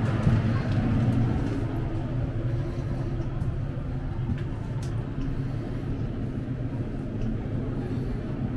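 Steady low rumble of a railroad passenger car in motion, with scattered light clicks and knocks.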